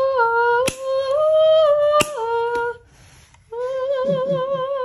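A woman's voice singing long held notes without words, stepping up and down between a few pitches, then holding a final wavering note. Two sharp clicks cut through, about a second and two seconds in.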